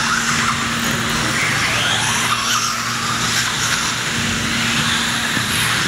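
Several Losi Mini-T 1/18-scale electric RC trucks racing: a steady wash of small electric motors whining, the whines rising and falling in pitch as the trucks accelerate and brake.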